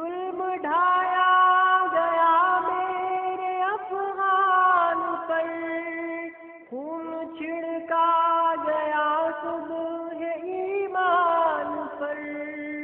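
Sung Urdu devotional nazm: a voice carrying a long, gliding melody with no words made out, over a steady held drone tone.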